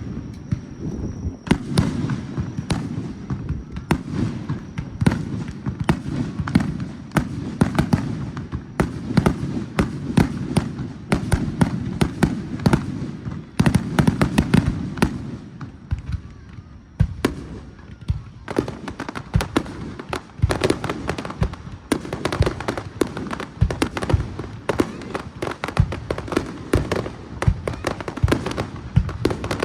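Fireworks display: a rapid, continuous run of shell bursts and crackling. For the first half, the bangs run together over a dense low rumble of booms. After about seventeen seconds, that rumble drops away into sharper, more separate cracks.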